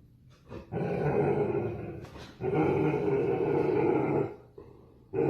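A dog growling in two long stretches, the first starting about a second in and the second about two and a half seconds in.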